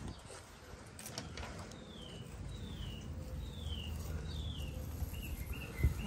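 A songbird whistling four falling notes in a row, then a few shorter chirps, over a low steady background rumble. A thump sounds near the end.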